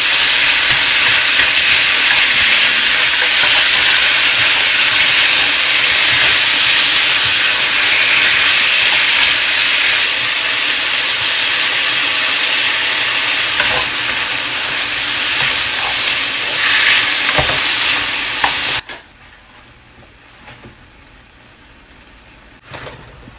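Sliced marinated beef with onion and garlic sizzling loudly in a hot frying pan as it is stir-fried with wooden chopsticks. The sizzle cuts off suddenly near the end, leaving only a quiet background with a few light clicks.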